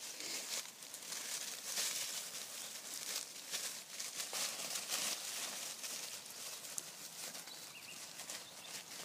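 A litter of puppies scrambling and rooting through dry fallen leaves: a steady rustling of leaves with many small crackles, busiest in the first half.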